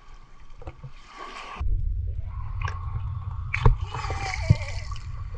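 Sea water splashing and sloshing at the shore, with a steady low rumble setting in about a second and a half in and a couple of sharp knocks.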